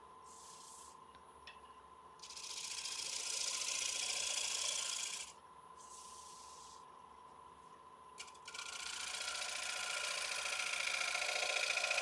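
A freshly burred 1-inch scraper shear-scraping fine shavings off a walnut bowl spinning on the lathe: a hissing scrape in two long passes of about three seconds each, with quieter gaps between, over a faint steady tone.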